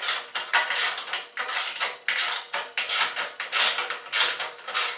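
Socket ratchet wrench clicking in repeated short strokes, about two a second, as it tightens nuts onto carriage bolts.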